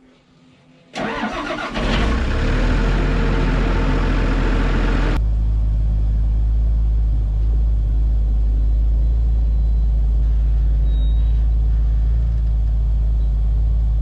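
An engine starts about a second in and settles into a steady low running drone. A loud hiss over it cuts off abruptly about five seconds in.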